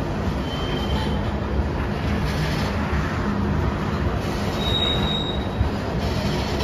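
CSX covered hopper cars rolling past on the rails, a steady rumble of wheels and car bodies, with two brief high-pitched wheel squeals, one about half a second in and one about five seconds in.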